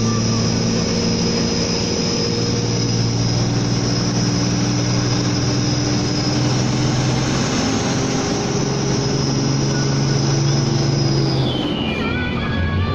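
Hino Ranger SG260 truck's six-cylinder turbo-diesel engine running steadily under a heavy load, heard from inside the cab along with road and tyre noise. The engine note shifts partway through, and near the end the noise drops off briefly.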